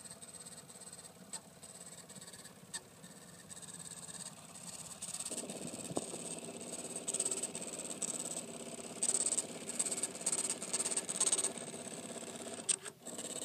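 Scan Coin coin counter's built-in receipt printer feeding out the count voucher: a steady motor hum starts about five seconds in, with repeated bursts of printing noise as the lines print, and a sharp click near the end.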